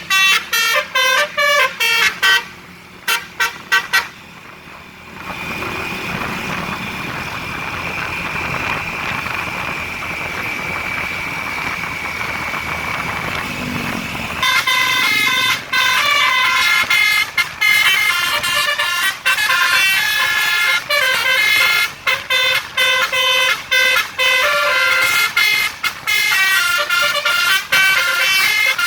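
A tour bus's 'telolet basuri' multi-tone musical horn playing a tune in quick stepping notes. Partway through the tune breaks off for about ten seconds of steady noise, then starts again and runs on.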